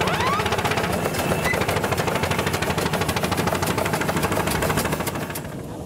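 An engine running with a fast, even knocking beat, which dies away near the end.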